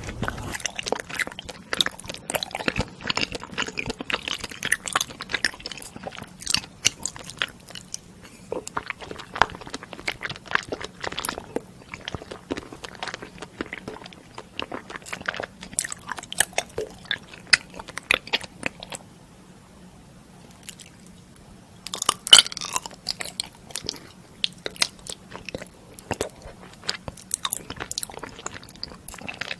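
Close-miked eating: a person biting and chewing food, with many small crunches and wet clicks. There is a short pause a little past the middle, then a louder burst of crunching.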